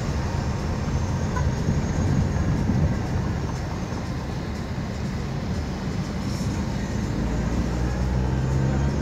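Car engine and road noise heard inside a moving car's cabin: a steady low rumble, with the engine's hum growing stronger near the end.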